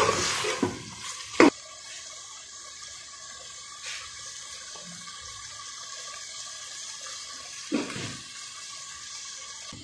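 A spoon stirring and scraping mutton in a metal pot, a knock about a second and a half in, then the meat and stock sizzling steadily as the stock cooks down to dry.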